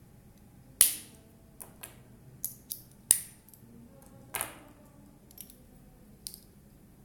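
Snap button charms clicking into the sockets of a stainless steel snap bracelet: three sharp snaps, with lighter metal ticks from handling in between.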